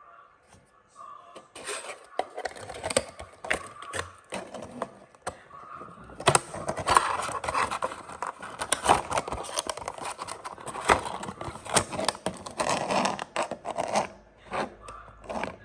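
Hands handling a 1/64-scale diecast toy car: scraping and rubbing with many sharp clicks and taps, starting about a second and a half in and dying down near the end.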